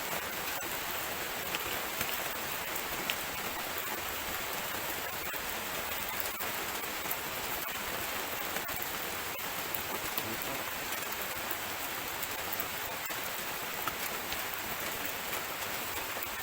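Steady hiss of light rain falling, with scattered faint ticks of drops.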